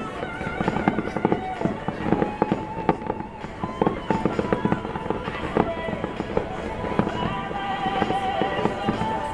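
New Year's Eve fireworks going off in a dense, continuous barrage: many sharp bangs and crackles in quick succession, overlapping one another.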